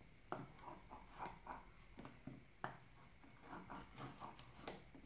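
Faint, irregular taps, clicks and rustles of hands opening a smartphone's retail box and handling the packaging.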